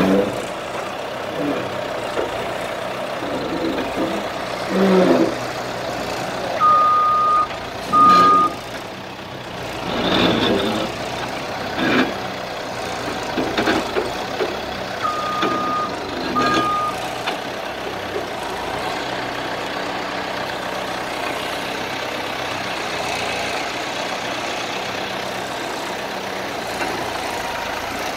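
TH63 telehandler's diesel engine running while it lifts a pallet out of a shipping container. Its reversing alarm beeps twice in two short pairs, and metal knocks and clanks come from the forks and pallet against the container.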